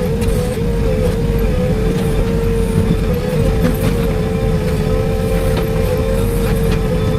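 Diesel engine of a demolition excavator running steadily, with a steady, slightly wavering whine over the low rumble and a few scattered knocks.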